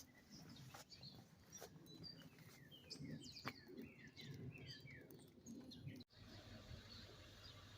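Faint outdoor birdsong: a run of quick chirps that each slide downward in pitch in the middle. A low background rumble sits underneath, and the background changes abruptly about six seconds in.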